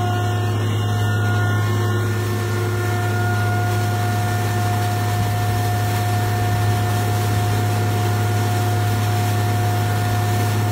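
Steady drone of a Cat 740 water truck's engine and water pump running while its cannon sprays, with a hiss of water spray that grows fuller about two seconds in.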